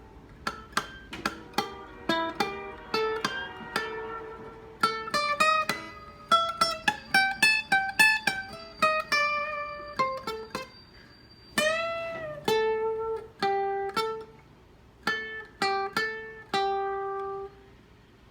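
Guitar played solo: blues licks of plucked single notes and double-stops, some in quick runs, with one note bent up and back down about twelve seconds in.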